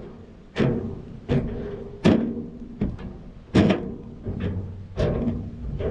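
Walking footsteps on a ringing metal structure: about eight steady strides, each one a sharp thud followed by a short metallic ring.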